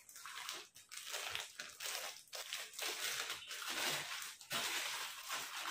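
Plastic packaging crinkling and rustling in irregular crackles as slippers are handled and unwrapped from it.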